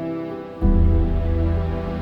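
Soft, slow background music with held notes; a deep bass note comes in about half a second in and the music swells.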